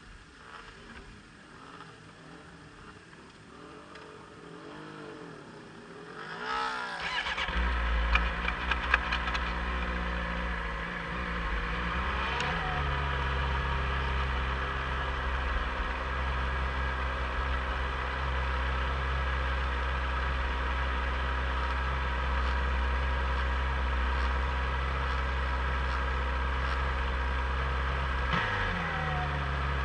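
A motorcycle engine starts about seven seconds in and then idles steadily. Its pitch shifts briefly twice, once a few seconds after the start and once near the end.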